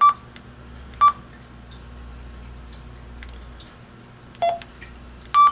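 Anytone AT-3318UV handheld radio's keypad beeping as its keys are pressed: short high beeps at the start and about a second in, a lower beep about four and a half seconds in, and another high beep at the end. The key tones show the reassembled radio powering and responding to its keypad.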